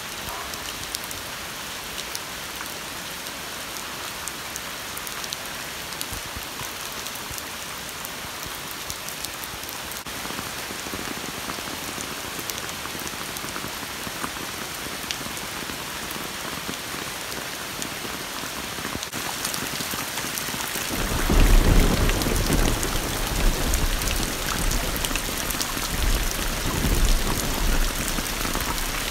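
Monsoon rain falling on puddles and wet ground, a steady hiss of pattering drops. About twenty seconds in it becomes a heavier downpour, louder, with deep low surges.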